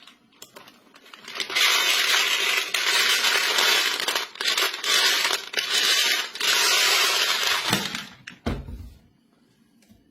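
Many small marbles rattling and clattering together on a plastic track for about six seconds, with a few brief breaks, followed by a single low thump.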